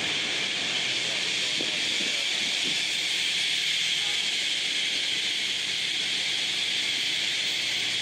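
Massed roost chorus of thousands of great-tailed grackles calling at once: a steady, high-pitched wash of chatter, with a few fainter single calls showing through it.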